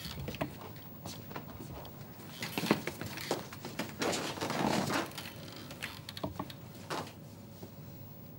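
Quiet rustling and a few soft knocks as a person sits down in a padded round chair.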